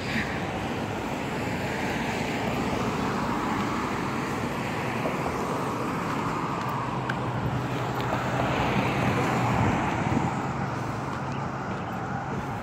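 Street traffic: cars passing on the road, their tyre and engine noise swelling and fading, with the loudest pass about eight to ten seconds in.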